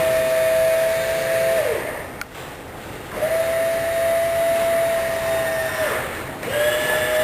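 Electric flap motor of a Fly Synthesis Texan running the flaps in repeated stretches of about three seconds. Each run is a steady whine that rises in pitch as it starts and sags as it stops. One run ends about a second and a half in. A click comes in the pause, the next run fills the middle, and another starts near the end.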